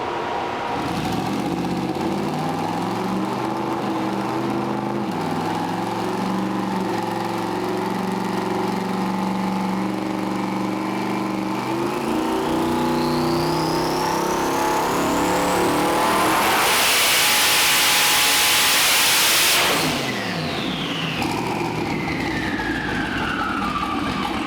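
Twin-turbo LS V8 making a dyno pull: the engine runs steadily, steps up in speed, then the turbo whine rises steadily in pitch into about three seconds of loud full-throttle running that cuts off suddenly. Afterward the turbo whine falls in pitch as the turbos spool down.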